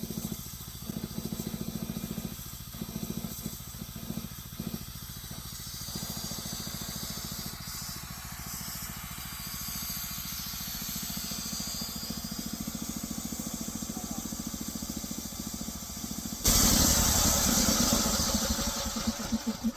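A home-built band sawmill's motor runs steadily while the band blade cuts through a black walnut log. About three seconds before the end, a much louder rush of noise starts suddenly and then fades.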